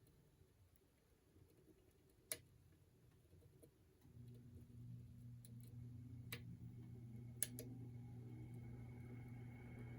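Faint, scattered sharp clicks of a hook pick working the pins of an ASSA 700 lock cylinder, three of them standing out. A low steady hum comes in about four seconds in.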